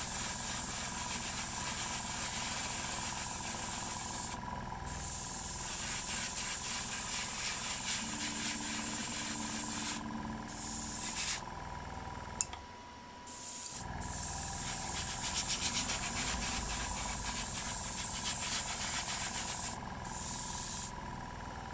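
Airbrush spraying paint, a hiss of air that stops and starts several times as the trigger is let off and pressed again, over the steady hum of a small airbrush compressor. A little past halfway there is a click, and everything stops for about a second.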